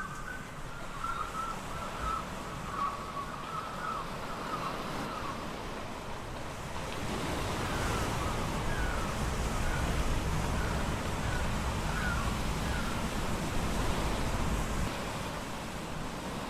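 Sea surf washing against a rocky shore with wind, swelling louder for several seconds in the middle. Short chirping bird calls come in runs over it, at the start and again in the middle.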